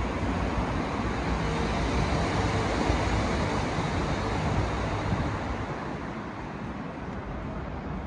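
Steady rumble of road traffic on the bridge overhead, heard from the underpass beneath it, easing slightly after about five seconds.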